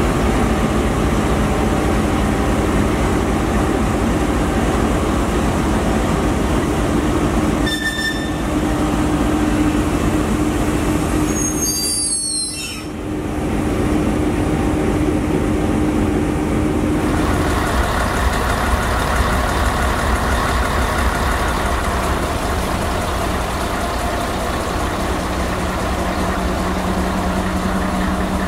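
Diesel locomotive engine running as an Eesti Raudtee locomotive and its work train of hopper and flat wagons roll slowly past, wheels on the rails, with a brief high squeal about twelve seconds in. The sound changes about seventeen seconds in as the yellow track maintenance machine comes by.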